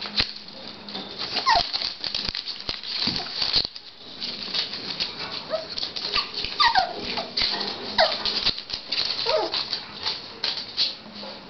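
Puppies whining in a few short cries that fall in pitch, while the wire playpen rattles and clicks as they paw and climb at its bars.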